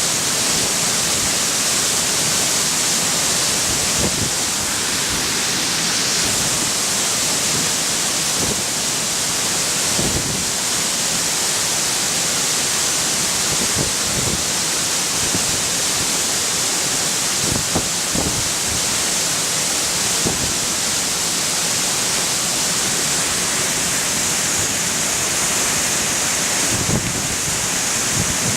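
A 60-foot waterfall crashing down close by: a loud, steady rush of falling water with scattered dull thumps.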